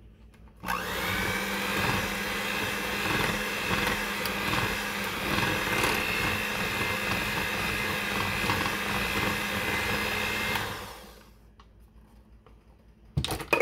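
Hamilton Beach electric hand mixer running steadily with a hum and a high whine, its wire beaters whisking butter, icing sugar and vanilla into buttercream in a glass bowl. It switches on about a second in and winds down near the end, followed by a couple of sharp knocks.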